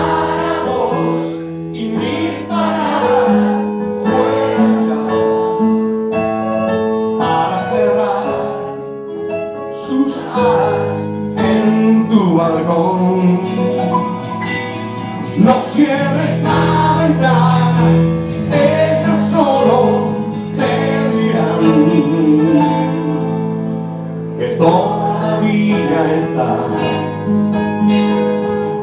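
Live song: a man singing into a microphone over electric guitar and sustained chords.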